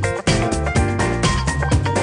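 Background music with drums keeping a steady beat under pitched instrumental notes.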